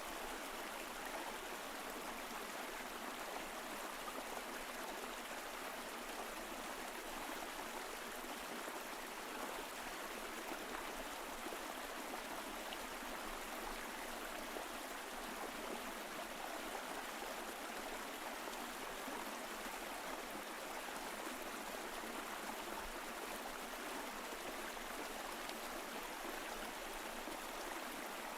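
Mountain stream flowing, a steady rush of water over rocks with gurgling and trickling.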